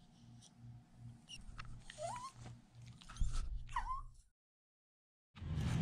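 A small dog whining twice, about two seconds in and again near four seconds, each a short rising whimper, over a faint low pulsing hum. Then the sound cuts out abruptly.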